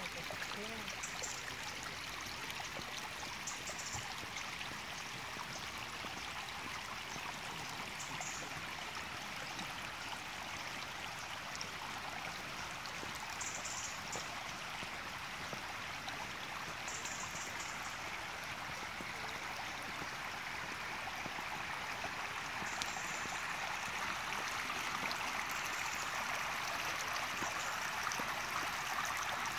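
Flowing water running steadily, a continuous stream sound that grows a little louder over the last third.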